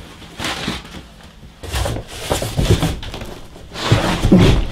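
Cardboard boxes scraping and rubbing against each other, with knocks and bumps, as a heavy boxed desktop PC is lifted out of its outer shipping carton. The loudest, deepest handling noise comes near the end.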